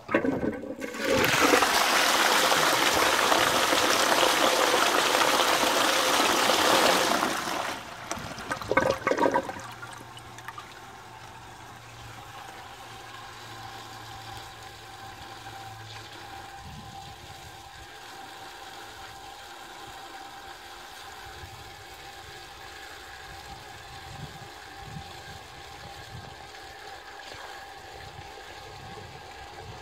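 A pre-1925 Thomas Green & Co cast-iron high-level cistern with a porcelain-enamelled bell syphon flushing. A loud rush of water lasts about six seconds and breaks into gurgles that stop about nine seconds in. After that comes a much quieter steady hiss with a faint whistling tone as the cistern refills.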